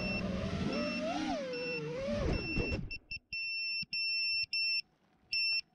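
Background music fading out, then an FPV quadcopter's piezo buzzer sounding a run of high single-pitch beeps of about half a second each, spaced unevenly.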